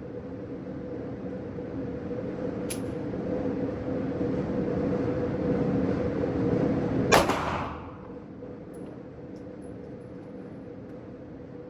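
A single sharp bang about seven seconds in, with a brief ringing tail. It comes over a steady humming drone that grows louder up to the bang and drops right after it.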